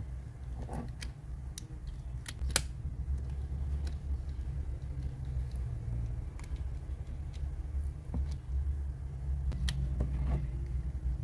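Small sharp plastic clicks and taps from handling AirPods earbuds and their charging case, scattered irregularly with the sharpest about two and a half seconds in, over a steady low hum.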